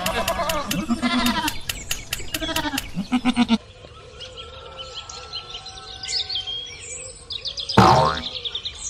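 Goat bleating, several quavering bleats over the first three and a half seconds, then small birds chirping. A short louder sound comes near the end.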